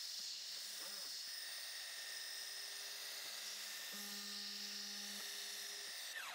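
Spindle of a small CNC-converted Grizzly G0704 milling machine running at speed with a steady high-pitched whine and hiss while a chamfer tool cuts the edges of an aluminium block. A lower hum joins for about a second midway, and the whine falls in pitch near the end as the spindle winds down.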